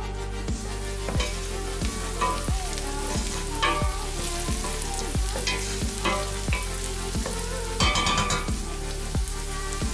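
Chopped red onions sizzling in butter in a stainless steel pot, stirred with a wooden spoon that scrapes and knocks against the pot, the loudest clatter about eight seconds in. Background music with a regular beat runs underneath.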